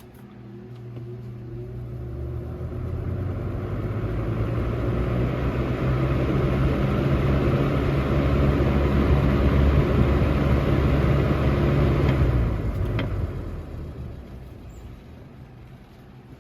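Lasko 3723 box fan running on medium speed: the motor hum and rush of air build over several seconds as the blades spin up, hold steady, then die away as the fan coasts down, with a click as it slows.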